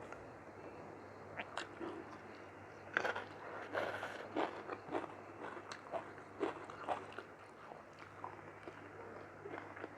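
Close-up eating sounds: a person chewing a mouthful of mutton curry and rice, with irregular mouth clicks and smacks that start about a second and a half in and come thickest in the middle.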